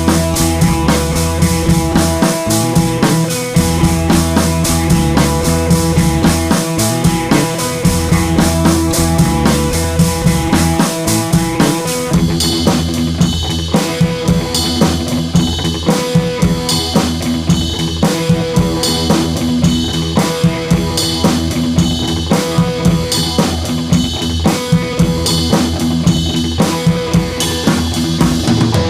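Music with a drum kit keeping a steady beat. About twelve seconds in, the deep bass notes drop away and the drums carry on with sharper, brighter hits.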